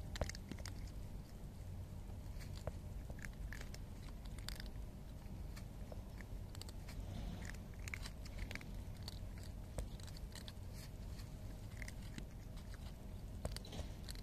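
Cats crunching dry kibble: irregular crisp bites and crunches as they chew, over a steady low rumble.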